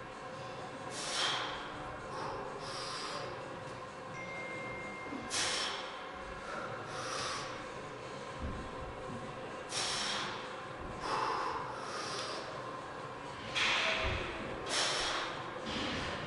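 Hard breathing of a man doing loaded barbell back squats: short, forceful breaths, about eight over sixteen seconds, a second or two apart, in time with the repetitions. A couple of dull low thuds come among them.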